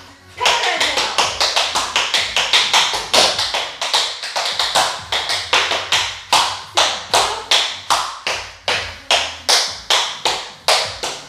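Tap shoes' metal taps striking a wooden floor in a quick, even run of sharp clicks, a tap dancer working through a continuous sequence of steps after a brief pause at the start.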